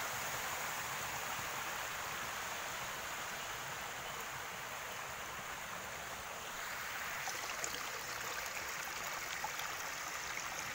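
Shallow stream water running and splashing over smooth rock slabs, a steady rushing. It grows a little louder and brighter about six and a half seconds in.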